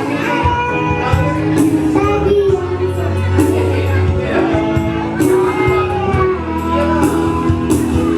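A woman singing a melody over instrumental accompaniment, with steady low notes underneath and regular percussive strokes.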